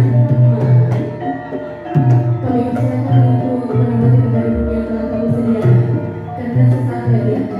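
Javanese gamelan ensemble playing a gending: bronze metallophones and gongs ringing in sustained, pulsing tones over hand-drummed kendang, with a deep low stroke about halfway through.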